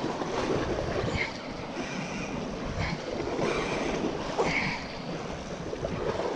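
Wind buffeting the microphone over the steady wash of sea waves.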